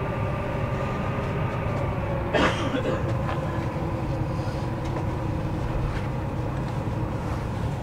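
Inside a moving electric commuter train: the steady running rumble of the carriage on the rails with a faint steady hum, and a brief clatter about two and a half seconds in.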